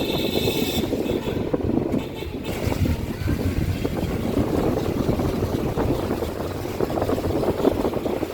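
Steady rumble of a moving vehicle, with a brief high-pitched tone in the first second.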